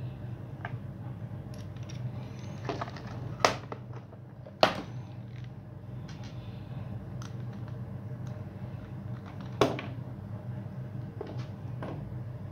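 Small metal tools and engine parts clicking and knocking as they are handled and set down on a wooden table, with a few louder sharp knocks, over a steady low hum.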